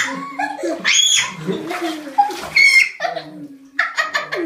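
A boy shrieking and laughing at the cold of icy bathwater: high squeals about one and two and a half seconds in, then a quick burst of laughter near the end.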